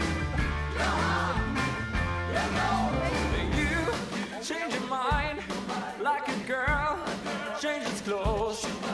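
Background rock music with a strong bass line; about four seconds in the bass drops away, leaving wavering higher notes.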